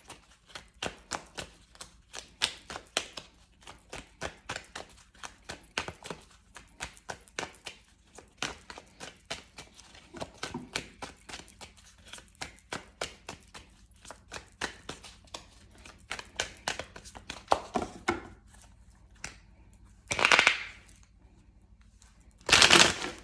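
A deck of tarot cards being shuffled and handled by hand: a long run of quick, irregular card clicks and snaps, several a second, with two louder rustles near the end.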